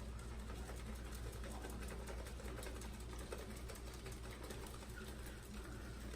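Damp shaving brush swirled on a puck of shaving soap to load it: a steady, fast, scratchy swishing of bristles over the soap.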